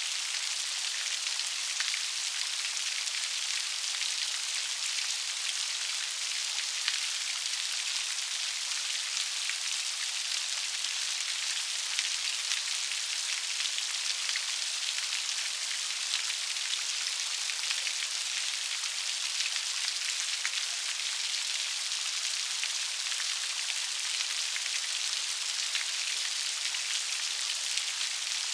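Steady rain falling, a dense even hiss of many small raindrops pattering on a surface.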